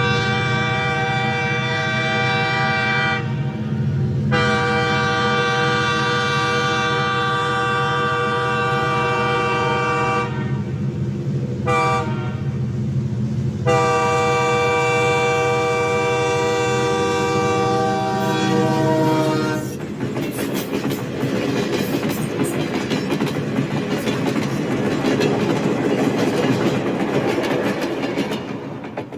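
Train air horn sounding a chord in the grade-crossing pattern: two long blasts, a short one and a final long one, its pitch sagging slightly as the last blast ends. A low rumble runs underneath, and after the horn stops the passing train's wheels clatter and rush over the rails.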